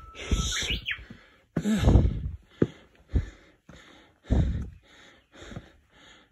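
Rapid, heavy panting breaths, about two to three a second, from a hiker out of breath after climbing with a 20 kg pack. A short rising bird chirp sounds about half a second in.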